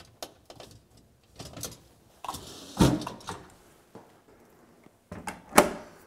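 KitchenAid dishwasher's upper rack being fitted back on its rails: small plastic clicks, then a sharp clunk about three seconds in. A little before the end the dishwasher door shuts with a knock and a short rattle.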